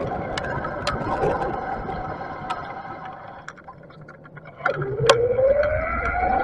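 Riding noise from a bicycle with a Bafang BBS mid-drive motor: wind and road rumble fading as it slows, with scattered sharp clicks and rattles. About four and a half seconds in, the motor's whine starts and rises steadily in pitch as it accelerates.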